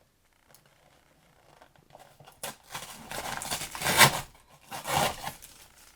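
Plastic film being peeled off and crinkling in rustling spurts, starting a little over two seconds in, loudest about four seconds in.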